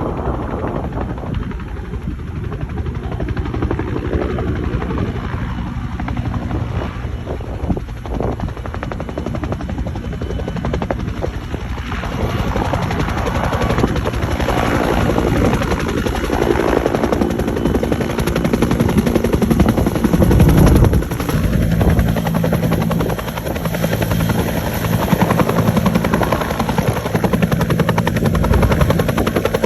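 Helicopter rotor beating steadily, growing louder as it comes closer and loudest about two-thirds of the way through.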